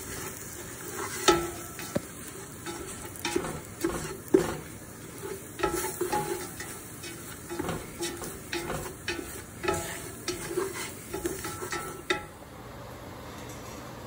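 Black slotted spatula scraping and stirring a flour, butter and onion roux across the bottom of a stainless steel stockpot, in quick irregular strokes with short squeaks, over a light sizzle: the flour is being cooked until it browns. The scraping stops about twelve seconds in.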